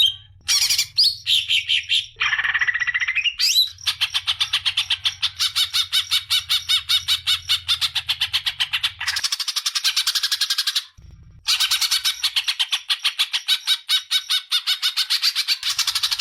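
A songbird giving harsh, chattering calls: a few short calls and glides, then long runs of fast-repeated rasping notes broken by a brief pause near the middle. A low electrical hum runs under the first half.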